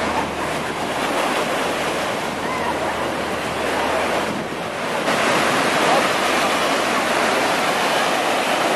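Atlantic surf breaking in a continuous rush, with wind on the microphone. The rush eases briefly about four seconds in and swells again a second later.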